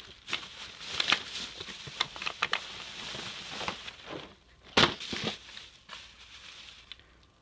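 Plastic bags and packaging crinkling and rustling as trash is rummaged through by hand, with scattered clicks and one sharper knock about five seconds in.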